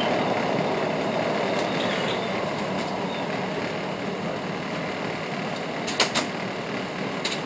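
PATCO Speedline train running through an underground station, heard from the cab: a steady rolling rumble of wheels and motors that slowly grows quieter, with a few sharp clicks near the end.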